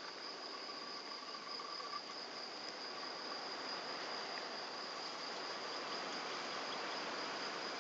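Insects trilling steadily in the background: one continuous high trill, with a fainter lower trill that fades out about two seconds in, over a steady outdoor hiss.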